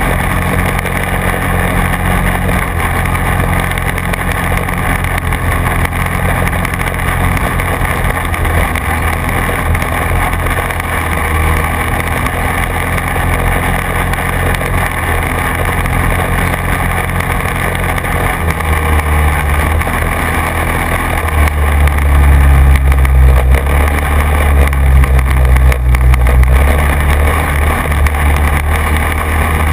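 Quad bike engine running steadily while riding. It grows louder for several seconds from about twenty seconds in, then eases back.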